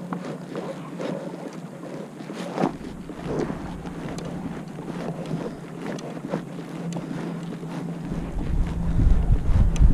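Wind buffeting the microphone over water moving along a pedal kayak's hull, with a few light knocks. The wind rumble grows louder near the end.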